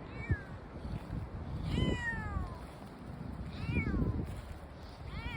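Brown tabby cat meowing four times, each meow falling in pitch: a short one at the start, a long drawn-out one about two seconds in, another near four seconds and one more at the very end. A low rumble runs underneath.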